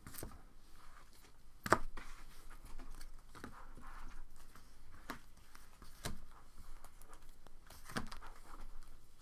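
Trading cards being handled and sorted by hand: soft rustling of card stock with several sharp taps spread through, the loudest about two seconds in.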